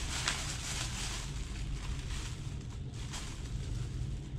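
Thin plastic bag rustling and crinkling as a bread loaf is taken out of it, with short crackles near the start and again about three seconds in, over a steady low background hum.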